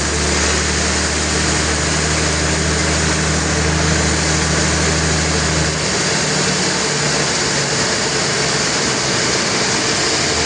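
Sawmill machinery running steadily with a loud, even noise. A low hum underneath drops out about six seconds in while the rest carries on.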